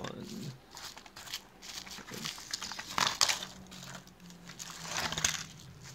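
Foil blister strips of tablets and their packaging being handled: irregular crinkling and crackling with scattered sharp clicks, the loudest about three seconds in.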